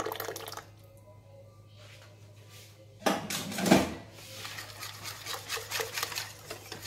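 Wire balloon whisk beating crepe batter in an enamel bowl, rapid repeated strokes of the wires against the bowl from about four seconds in, after a brief louder burst of noise about three seconds in. A steady low hum runs underneath.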